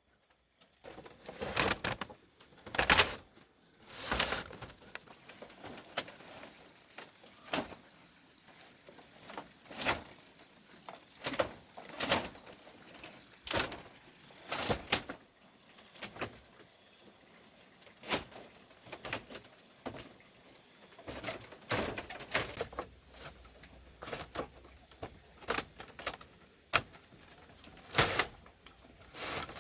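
Irregular knocks and clatters, one every second or two, some in quick pairs, over a faint steady hiss.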